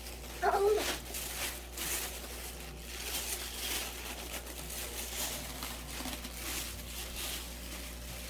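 Plastic food packaging crinkling and rustling in irregular bursts as items are handled and unpacked.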